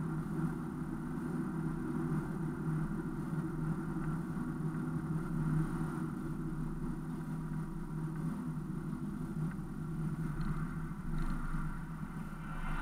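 Car engine and road noise heard from inside the cabin, a steady hum while driving that eases slightly near the end as the car slows for a stop sign.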